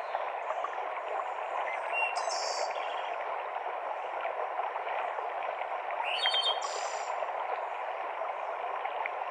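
Mountain stream cascading through a forest, a steady rush of water, with brief high bird calls twice, about two seconds in and about six seconds in.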